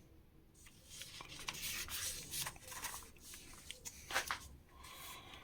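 Paper rustling and rubbing as the pages of an old magazine are handled and turned, with a few soft clicks.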